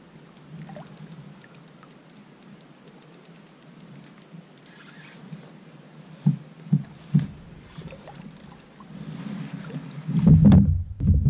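Spinning reel ticking rapidly and evenly, about six clicks a second, as a barracuda is fought on the line. The ticking thins out, then three dull knocks follow. A loud burst of low rumbling noise comes near the end.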